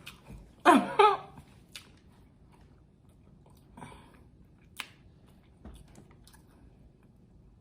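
Close-miked chewing and biting of food, with small crunches and mouth clicks. About a second in, a short, loud voiced sound comes from the eater, such as an "mm" of enjoyment.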